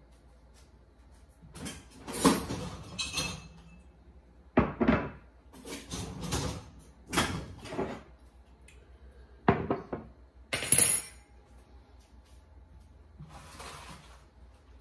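Kitchen clatter from someone moving about and handling doors and dishware: a string of short knocks, bangs and clinks in about six bursts, the loudest about two seconds in and again after about ten seconds.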